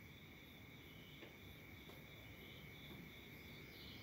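Near silence: faint room tone with a steady high whine and soft, irregular insect-like chirping, while the digital radio is still silent.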